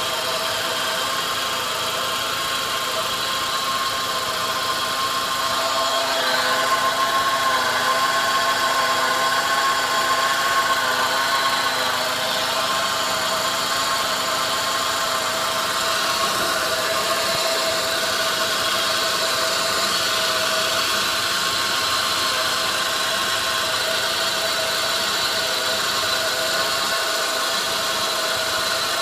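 2002 Saab 9-5 Aero's turbocharged four-cylinder engine running with a steady high whine over it; the whine rises a little in pitch and gets louder about six seconds in, settling back about twelve seconds in. A shop put the whine down to a failing A/C compressor, which the owner doubts.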